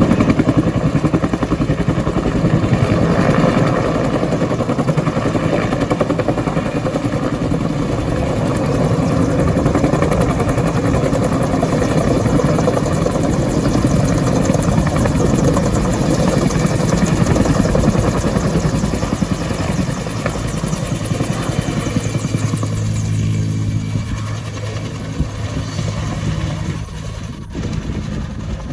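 Bell 205 helicopter running, its two-bladed main rotor beating in a fast even pulse over the turbine's sound. It grows somewhat quieter in the last third, where a steady low hum comes through, with a brief dip near the end.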